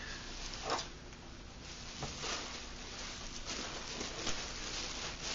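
Bubble wrap and a thin plastic bag rustling and crinkling as hands handle them, with irregular short crackles.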